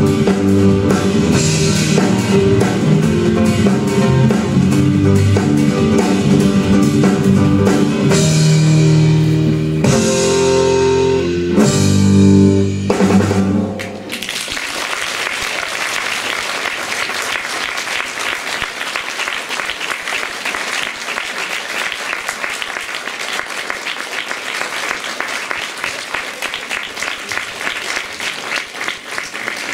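The instrumental close of a song, stopping abruptly about halfway through, followed by steady audience applause.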